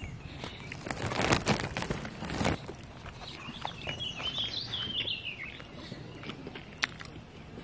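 A songbird sings a twittering run of chirps for a couple of seconds in the middle, after bursts of rustling noise near the start. A single sharp click comes near the end.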